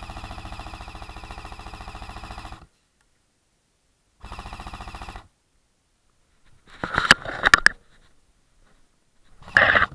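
Airsoft GPMG firing a fully automatic burst of rapid, even shots lasting nearly three seconds, then a second burst of about a second. Later come a few sharp cracks and clatters, around seven seconds in and again near the end.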